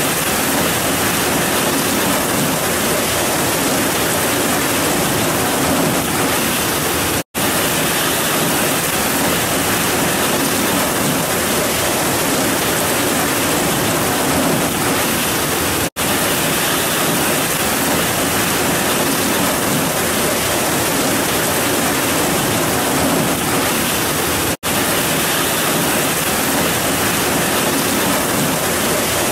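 Heavy rain pouring down in a steady, dense hiss. The sound cuts out for an instant three times.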